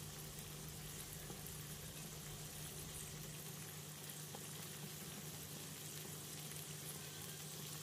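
Faint, steady bubbling of oxtail and tomatoes simmering in liquid in a karahi, over a steady low hum.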